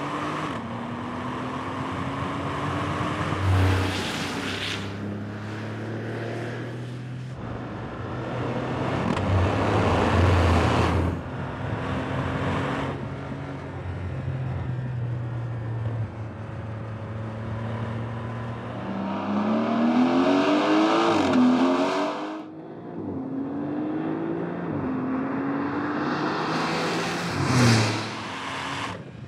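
2026 Porsche 911 Turbo S (992.2) twin-turbo flat-six accelerating hard. Its pitch climbs repeatedly and drops back at each upshift. Several loud rushing surges come through as the car passes close by.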